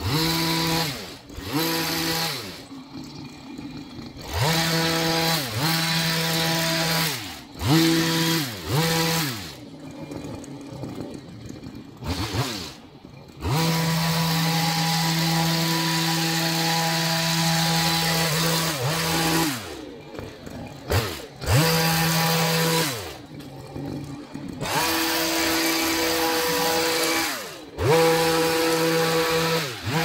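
Petrol long-reach hedge trimmer's small two-stroke engine revved up in repeated bursts while cutting a beech hedge. It holds at full speed for a second to a few seconds at a time and drops back to idle between cuts, with one longer steady run in the middle.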